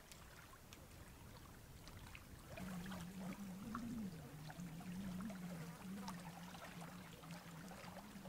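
Faint outdoor ambience with scattered small ticks. About two and a half seconds in, a low droning hum starts and runs on, wavering slowly up and down in pitch.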